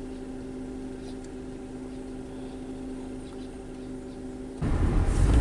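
Steady hum of the 2006 Mitsubishi Lancer idling in park, heard inside the cabin. Near the end it switches suddenly to the much louder low rumble of the car driving on the road.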